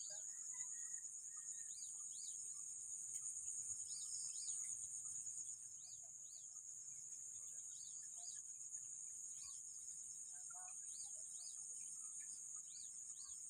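A steady, high-pitched insect trill, with many short, quick bird chirps scattered over it.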